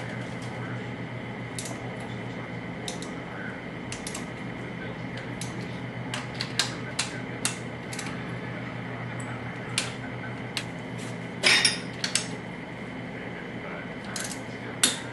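Ratchet head of a torque wrench clicking in irregular single clicks as cylinder head bolts are drawn down, with a louder metallic clunk about eleven and a half seconds in. A steady low hum runs underneath.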